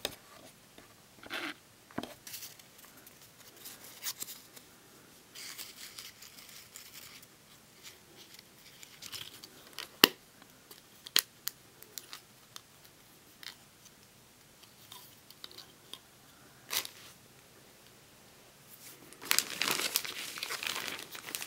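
Quiet handling of a small silver metal doll purse and its paper play money: light rustles and small clicks, with a sharp click about ten seconds in as the purse's clasp is worked. Near the end comes a louder crinkling of a clear plastic zip bag as the purse is set down on it.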